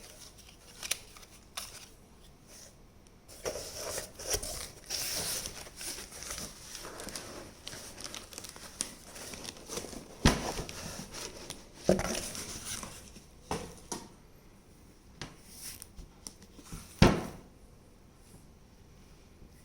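Packaging crinkling and tearing as a box set is unwrapped, in spells of rustling with a few sharp knocks, the loudest near the end.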